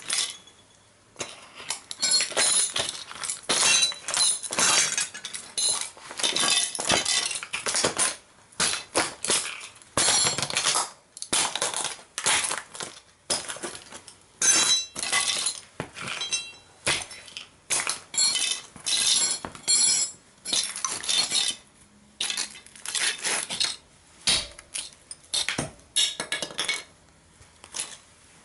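Sneaker soles stomping and grinding a broken model toy car into pieces: repeated cracking, crunching and clinking of metal and plastic parts scraping on a stone tile floor, in irregular bursts with brief pauses.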